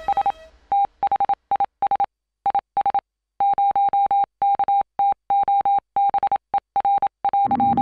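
A single-pitched electronic beep keyed on and off in short and longer pulses with silent gaps, like Morse code being sent. A low steady hum comes in near the end.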